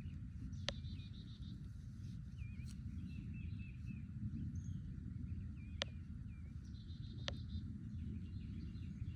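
Outdoor pond-side ambience: small birds repeating short wavering calls, with two brief buzzy trills, over a steady low background rumble. Three sharp clicks stand out, one near the start and two later on.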